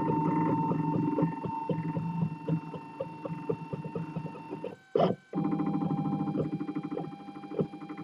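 3D printer's stepper motors whining at steady pitches as the print head moves, over fast ticking; about five seconds in the sound breaks off briefly with a sharp burst, then resumes on a slightly lower tone.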